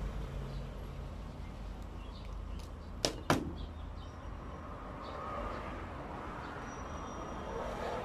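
Two sharp clicks about a quarter second apart, about three seconds in, from a pair of pliers being handled while wiring, over a low steady hum.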